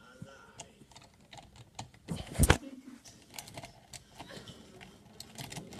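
Handling noise: a scattered run of small clicks and taps, with one louder knock about two and a half seconds in.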